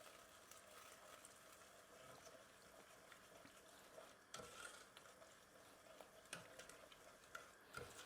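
Faint stirring of melting butter and brown sugar in a saucepan with a wooden spoon, with a few soft knocks of the spoon against the pan.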